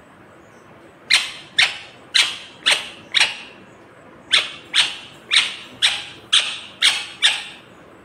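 Indian ringneck parrot calling in short, loud, sharp calls about two a second: a run of five, a brief pause, then a run of seven.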